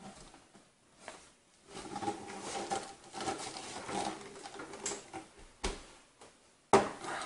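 A flat-panel computer monitor being handled and lifted off its desktop stand base: a few seconds of irregular scraping and handling noise, a sharp knock, then a loud thump near the end as the monitor is set down on a towel laid on a wooden desk.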